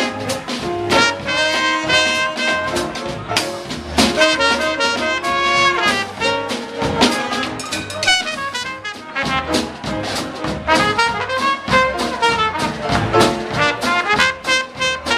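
Live small-group jazz with the trumpet leading in quick, short-note lines over upright bass and rhythm section.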